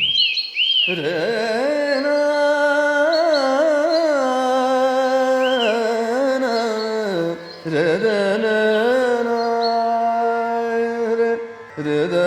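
Background music in Indian classical style: a slow melody, sung or played, with sliding, wavering notes that pauses briefly about halfway and again near the end.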